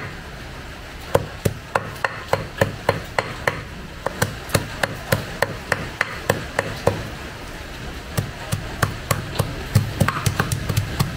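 A heavy cleaver chopping water snake meat, with its bones and skin, on a thick wooden chopping block. The blade strikes about three to four times a second, pauses briefly about two-thirds of the way through, then comes faster near the end, mincing the meat fine.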